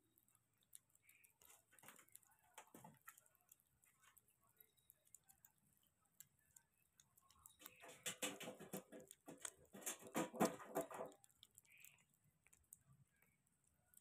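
Kitten eating wet food: faint, rapid wet clicking of licking and chewing, with two louder stretches of about a second and a half each, around eight and ten seconds in.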